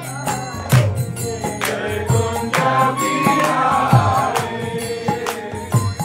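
Kirtan music: a devotional chant sung over a harmonium's sustained reed tones, with a steady beat of sharp clicks and low drum strokes.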